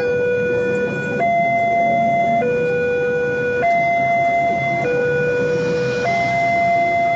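Railway level-crossing warning alarm sounding a two-tone hi-lo pattern, switching pitch about every 1.2 seconds. Under it is the low rumble of passenger coaches rolling slowly past on a shunting move.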